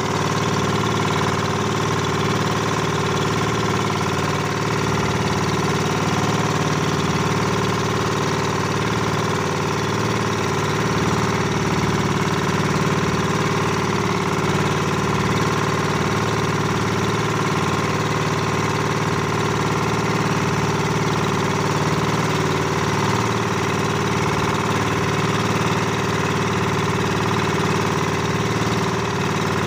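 A boat's engine running steadily at a constant speed, with no change in pitch or level.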